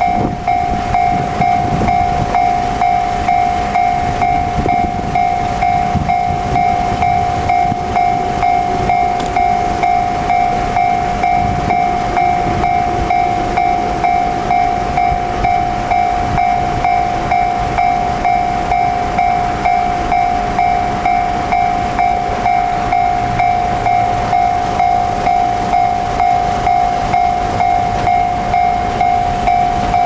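Japanese electronic level-crossing warning bell ringing without a break, an even ding-ding just under two strokes a second: the crossing is closed for an approaching train.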